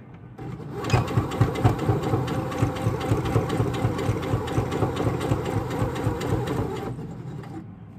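Domestic electric sewing machine stitching at a steady, fast even rhythm. It starts about half a second in and stops about a second before the end.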